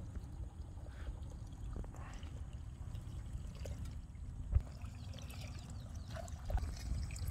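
Water pouring and splashing as it is bailed out of a shallow wetland channel by hand, with one sharper splash about four and a half seconds in.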